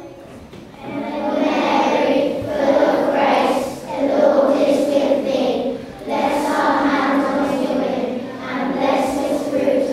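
A group of children singing together, like a school assembly hymn, starting about a second in, in phrases with short breaks between them.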